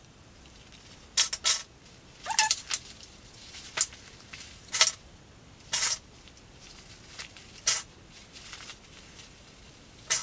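Plastic sewing clips being snapped onto the edges of fabric pieces: a series of sharp, irregular clicks roughly a second apart, some in quick pairs.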